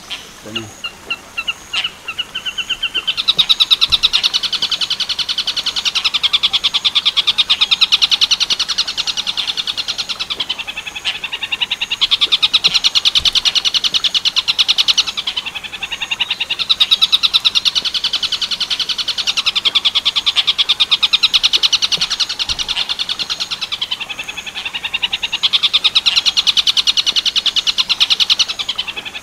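Tengkek buto bird call used as a shrike-training recording: a few single notes, then long runs of very fast, high chattering notes that break off briefly every several seconds and start again.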